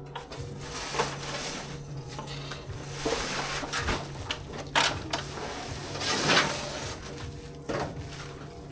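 Paper cement sacks being slid off a dump truck's metal bed and dropped onto a stack of sacks: scattered knocks and dull thumps, with a longer scraping rush about six seconds in.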